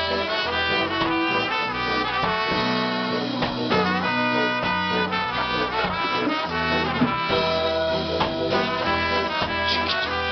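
Trombone and trumpet playing a horn line of held notes together, over a live reggae band's bass and rhythm section.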